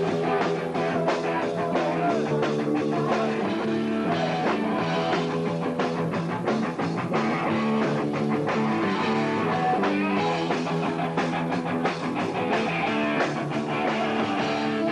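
Heavy metal band playing live: electric guitar over bass and a steady drumbeat.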